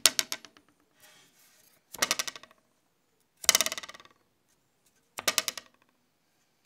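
A thin wooden stick held against the edge of a wooden plank is flicked at its free end four times, each time rattling fast against the wood and dying away within about half a second. This is a foley imitation of a knife, arrow or javelin thudding into a target and quivering.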